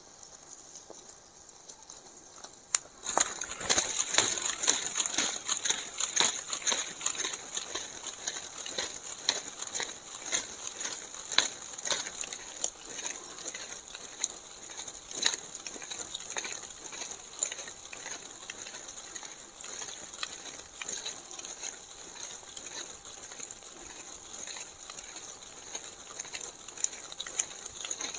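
Wood fire and grilling chicken crackling and sizzling as the embers are fanned with a bundle of leaves: dense irregular crackles over a steady high hiss, starting suddenly about three seconds in and loudest for the next few seconds.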